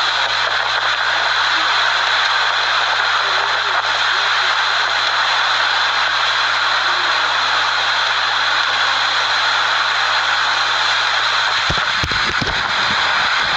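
Tornado winds rushing past the house as one loud, steady noise. About twelve seconds in, a run of sharp knocks and crackles begins over it.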